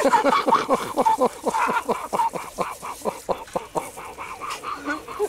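Small puppy yelping in quick, short, falling cries, about four or five a second, while being washed under a hose; the cries thin out after about four seconds.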